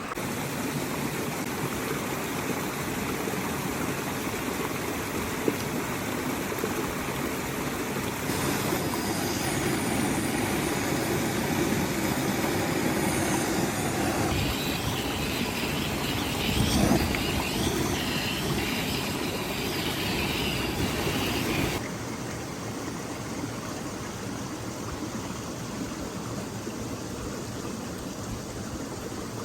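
Steady rush of a waterfall's cascading water, its level and tone shifting abruptly a few times.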